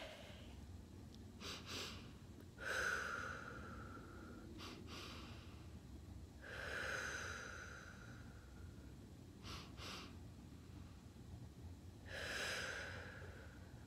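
A woman breathing slowly and deeply as a breathing exercise: three long, audible breaths of about two seconds each, spaced several seconds apart, each preceded by a shorter, softer breath.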